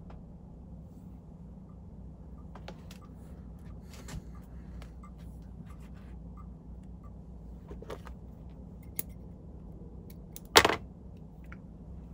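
Small clicks and handling noises of fly tying at a vise: thread, bobbin and hook being worked by hand, over a steady low hum. One sharp, much louder clack comes about ten and a half seconds in.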